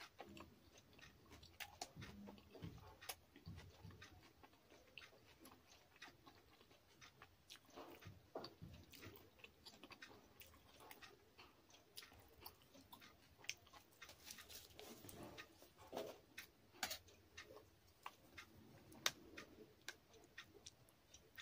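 Faint close-up chewing of a mouthful of puri and vegetable curry: soft, irregular wet mouth clicks and smacks, a few louder ones in the second half.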